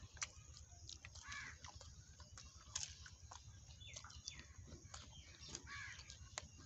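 Faint chewing and mouth sounds of people eating fried samosas, with scattered small crisp clicks from the pastry. A bird gives a short faint call about four seconds in.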